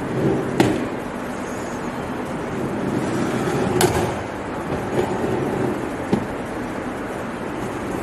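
A few sharp knocks over a steady background hiss: the small trucks and hanging weights of a Newton's second law demonstration apparatus being pulled back and released by hand. One knock comes about half a second in, a louder one near the middle, and two fainter ones after it.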